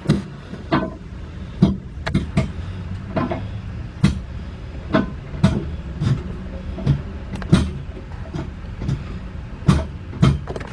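Irregular metal clicks and clanks, about one or two a second, as the engine support bar is worked to lower the engine onto its mount, over a steady low hum.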